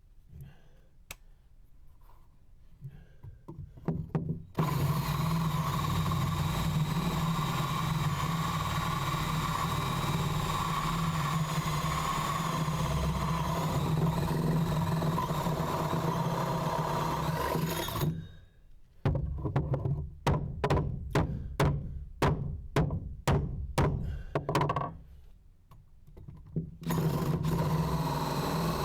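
Power drill running steadily for about thirteen seconds, then worked in a string of short bursts, about two a second, and running steadily again near the end.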